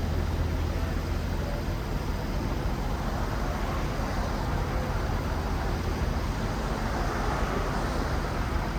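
A dump truck's diesel engine running steadily: a low, even rumble that holds the same pitch throughout.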